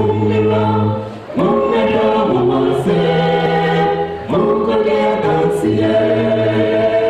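Small vocal group of men and women singing in harmony into microphones, holding long notes, with brief breaks about a second in and again about four seconds in.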